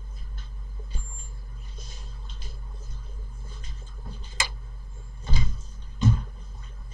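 Steady low electrical hum and background noise from the microphone. A sharp click comes a little after four seconds, and two louder dull thumps about five and six seconds in.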